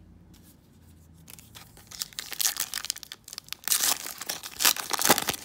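A Topps trading-card pack wrapper being torn open and crinkled by hand, starting about two seconds in as a run of crackling rustles that grows loudest near the end.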